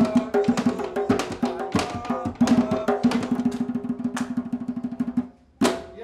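Hand drum played in a quick folk-dance rhythm. About two and a half seconds in it builds into a fast roll, which breaks off suddenly near the end, followed by one last stroke.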